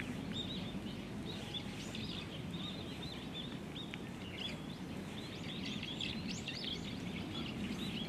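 Many small birds chirping in short, quick high calls throughout, over a steady low background rumble.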